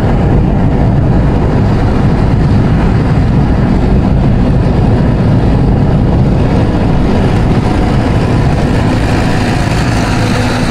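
Steady road and engine noise inside the cabin of a car moving at highway speed.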